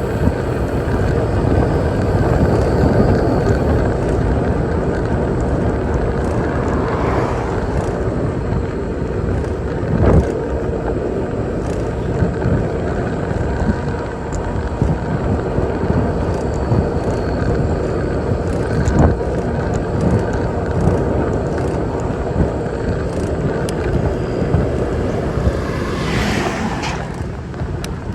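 Riding a bicycle along a city road: steady wind and road noise, with cars passing, one around 7 seconds in and another near the end. There is a single sharp knock about 10 seconds in.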